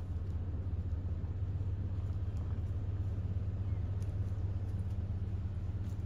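Steady low rumble with no distinct events.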